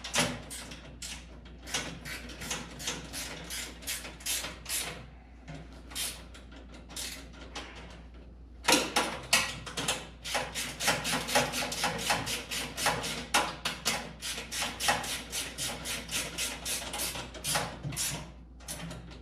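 Ratcheting gear wrench clicking as it runs caster bolts tight: scattered clicks at first, then a fast, steady train of clicks, about four or five a second, from about nine seconds in.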